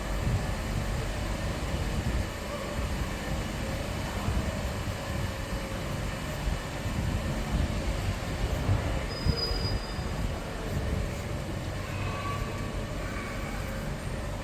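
A vehicle's low, steady rumble on a city street, with a brief thin high squeal about nine seconds in.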